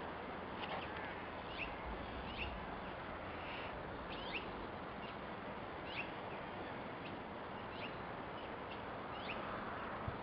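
Small birds chirping: short, high chirps about once a second over a steady hiss of background noise.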